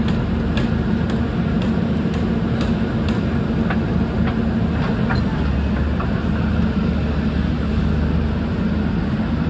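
JCB 3CX backhoe loader's diesel engine running steadily as the machine digs, with a deep hum that strengthens for a few seconds past the middle and faint scattered clicks.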